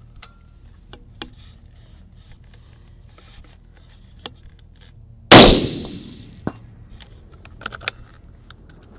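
A single .308 Winchester rifle shot from a Thompson Center Encore break-action rifle about five seconds in: a sharp crack with an echo that fades over about a second. A few light metallic clicks follow as the rifle is handled.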